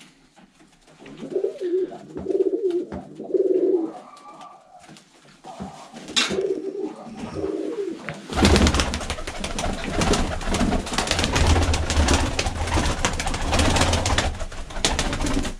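Domestic Baku pigeons cooing in a loft. From about 8 seconds in, a loud, dense flurry of wing flapping as birds take off and fly about inside.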